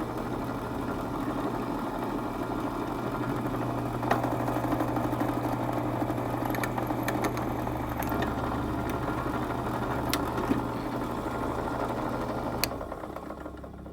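Benchtop drill press running with its motor humming steadily while the bit cuts a hole through a pocket-knife part, with a few sharp clicks along the way. Near the end the motor is switched off and the sound drops away.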